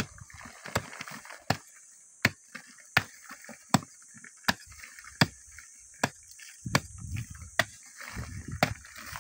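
A hand tool striking soft, crumbly rock in a steady rhythm, about one sharp strike every three quarters of a second. A low rumble joins in over the last few seconds.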